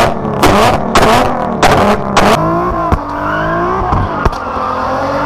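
A car engine blipped hard about five times in quick succession, then held at high revs with its pitch sliding down and back up.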